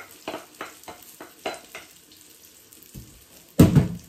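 Wooden spoon scraping the egg-and-potato tortilla mixture out of a glass bowl into a hot oiled frying pan in quick strokes, about three a second, over a faint sizzle. A loud knock comes about three and a half seconds in.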